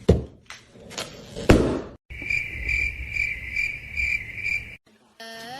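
Two thumps about a second and a half apart, then a steady high insect-like trill that pulses about twice a second for nearly three seconds and stops suddenly.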